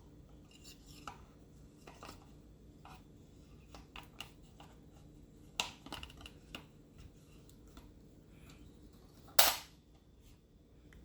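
Light plastic clicks and knocks as a Roomba's dust bin and filter are handled, with one loud, sharp plastic snap about nine and a half seconds in.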